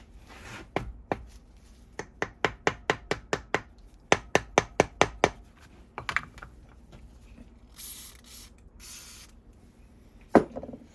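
Quick, light hammer taps on the metal parts of an old Landis leather splitter, in runs of several strikes at about five a second, as a pinned part is worked loose a little at a time. Near the end there is a brief scraping hiss and then one sharp knock.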